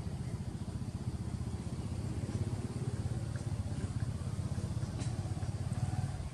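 A motor vehicle engine running with a steady low rumble.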